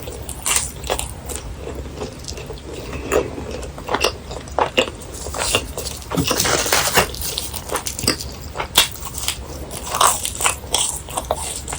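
Crunchy bites and chewing of crispy deep-fried snacks: irregular sharp crunches, with a dense run of them about six to seven seconds in.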